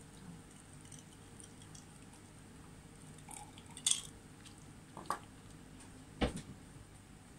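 Tableware clinking as a ladle and chopsticks knock against the hot-pot pan and a ceramic bowl: three sharp clinks about a second apart in the second half.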